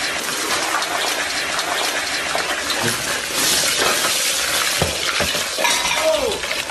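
A pot of frying oil on fire, sizzling and spattering with a dense, crackling hiss that grows brighter about halfway through as the flames flare up. A short falling cry comes near the end.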